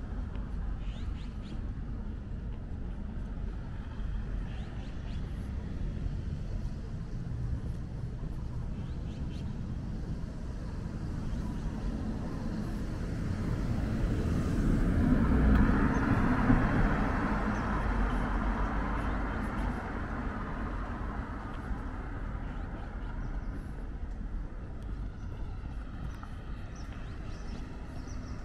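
A road vehicle passing by, growing louder to a peak about halfway through and then fading away, over a steady low rumble.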